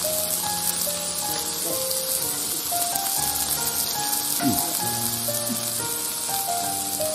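Beef slices and shrimp sizzling steadily on a hot camp-stove grill plate, under background music.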